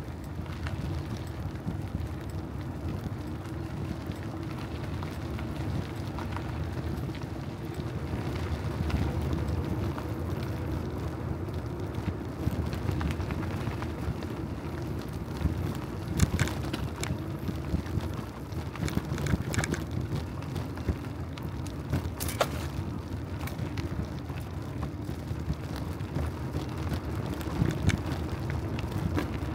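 Steady low rumble of wind and rolling noise from a bicycle being ridden, with a few sharp rattles or clicks in the second half.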